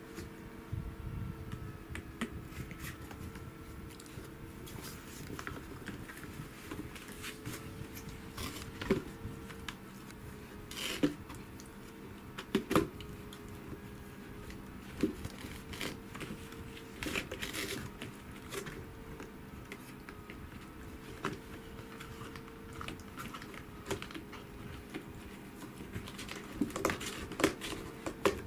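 Scattered taps, scratches and rustles of a corgi puppy and a kitten playing over a small cardboard box: paws and claws scraping the cardboard and mat, and the puppy mouthing the box edge. A faint steady hum runs underneath.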